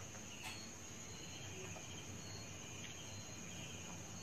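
Faint steady background noise with a thin, constant high-pitched whine and a couple of soft clicks; no speech.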